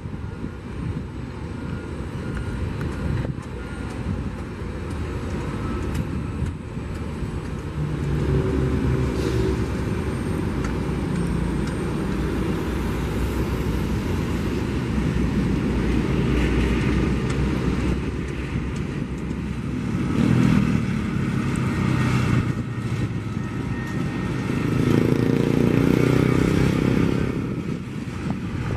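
Boeing 747-400 freighter's four jet engines rumbling on final approach, the sound building up as the jet comes closer and swelling loudest in the last third as it nears the runway.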